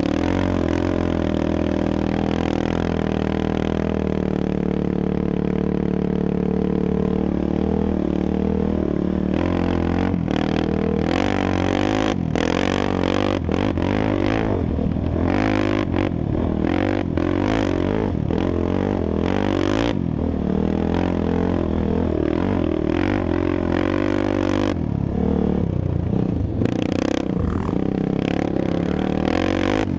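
Sport quad (ATV) engine running under way at a steady speed, then revving up and down from about nine seconds in. Frequent short knocks and rattles come through over the engine from then on.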